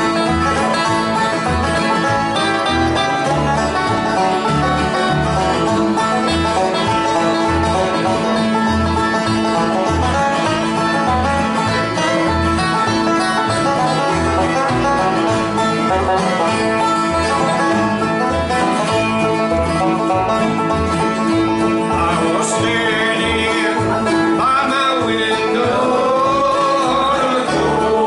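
Live bluegrass band playing an up-tempo tune, banjo and guitar over a steady low beat. A voice comes in singing near the end.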